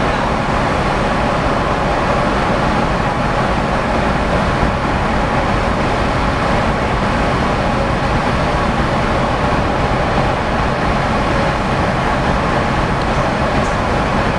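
Ferry's engines and funnel exhausts running steadily as the ship maneuvers: a loud, even rumble with a steady hum of tones through it.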